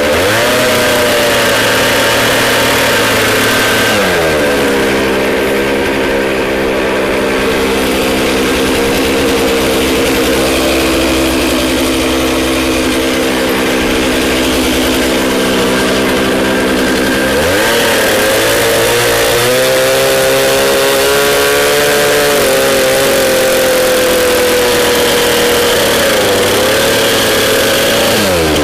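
Chainsaw running while bucking firewood to shorter lengths: its pitch drops about four seconds in and holds steady, climbs again after about seventeen seconds and wavers, then drops back near the end.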